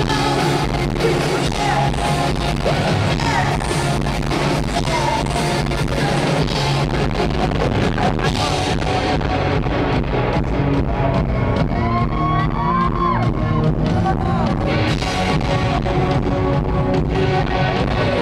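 Live rock band playing loud: drums and electric guitar with a woman singing, heard from among the audience.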